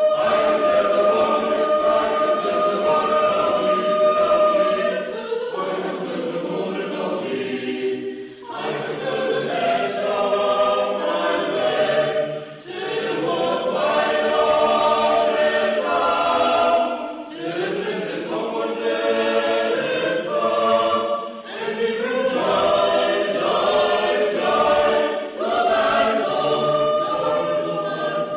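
Choir singing in long held chords, the phrases breaking off briefly about every four seconds.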